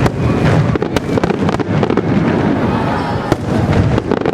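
Aerial fireworks going off in a rapid barrage: many sharp bangs and crackles a second over a continuous low rumble, with a few faint whistles.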